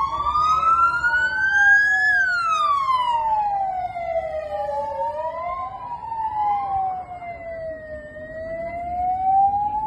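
Emergency vehicle sirens wailing: two loud tones, each slowly rising and falling out of step with the other so that they cross back and forth.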